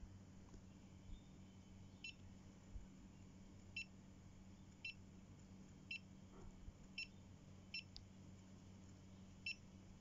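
Topcon GTS-239N total station beeping during distance measurement: seven short, high electronic beeps, roughly a second apart, over a faint low hum.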